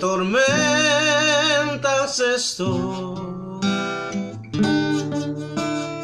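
A man singing a slow Spanish-language worship song with vibrato, to strummed acoustic guitar. The sung line ends about two and a half seconds in, and the guitar chords carry on alone.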